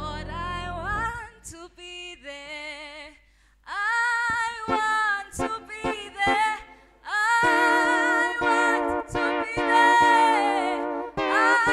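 Several voices singing a gospel song together in harmony without accompaniment, with a clear vibrato on held notes and a short pause about three and a half seconds in.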